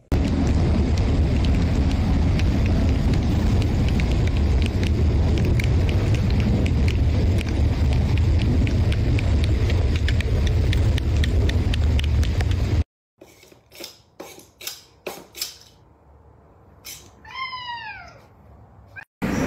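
Loud steady rumbling noise with scattered faint ticks, cutting off suddenly. Then a few sharp clicks, and a domestic cat's single meow, falling in pitch, near the end.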